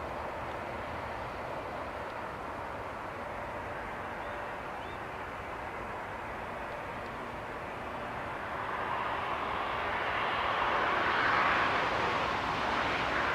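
Aircraft passing: a steady rushing engine noise that swells over the last few seconds, loudest about eleven seconds in.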